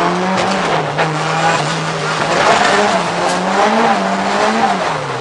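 Drift car's engine heard from inside the cabin, held at high revs with the throttle worked up and down as the car slides, over loud tyre and road noise. The revs fall away near the end.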